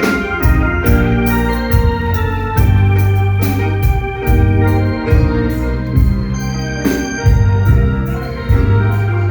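A live Thai piphat ensemble playing: sustained melody notes over regular drum beats.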